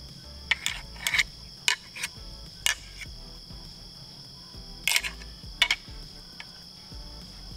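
Pair of deer antlers tickled together, their tines giving light, irregular clicks in short clusters to imitate sparring bucks. Insects trill steadily behind.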